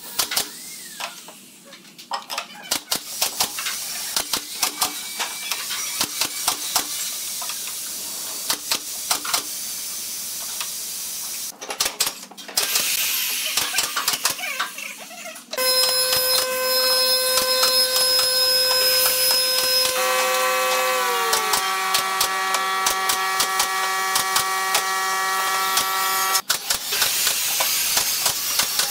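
Pneumatic brad nailer driving nails into pine boards: many short sharp shots, some in quick runs, with a hiss of air. For about ten seconds in the second half a steady hum of several tones runs under the shots, one tone sliding down partway through.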